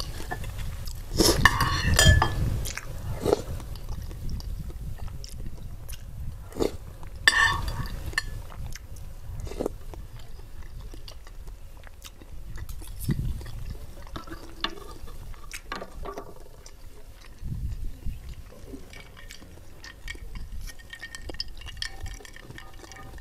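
Close-miked ASMR eating sounds: a metal spoon and fork clinking and scraping against a glass bowl of lontong sayur, with chewing in between. The loudest clinks come about one to two seconds in and again around seven seconds.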